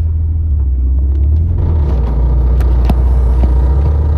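Acura TSX moving slowly, a steady low rumble of engine and road heard inside the cabin. About a second and a half in, a rougher scraping noise with a few clicks joins it: the lowered car's right-side tyre rubbing, rubbing bad.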